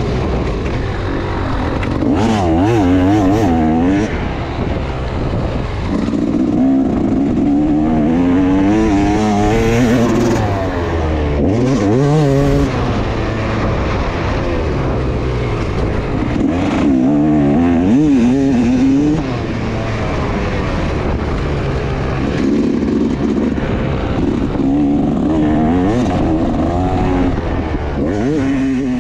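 Motocross bike engine heard from on board, repeatedly revving up and dropping back as the throttle opens and closes around the track, with brief easings of throttle between bursts.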